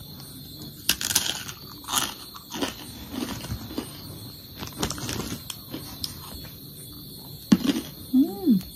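Crunching and chewing of a crispy homemade snack stick: a run of sharp, irregular crunches as she bites and chews.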